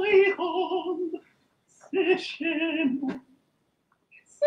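Countertenor singing unaccompanied in a high voice with vibrato: two held phrases with a short break between them, heard over a video-call link.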